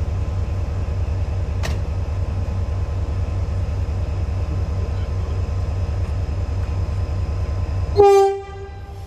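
Steady low, pulsing rumble of a train. About eight seconds in it breaks off, and a short, loud single-tone train horn blast sounds and quickly fades.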